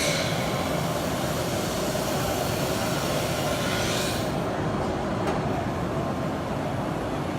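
Steady, fairly loud din of a busy machine-tool exhibition hall. A hiss rides over it for about the first four seconds, then cuts off.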